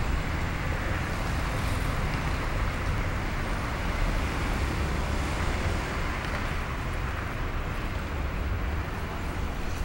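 Steady road traffic noise: a continuous rumble and hiss of passing cars and buses.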